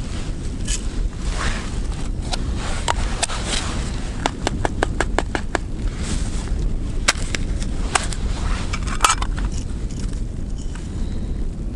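Steady wind noise on the microphone, with a string of small sharp clicks and scrapes, thickest in the middle, from plastic bait containers, a cup and a bag being handled while loose groundbait and live gammarus are readied for feeding the ice hole.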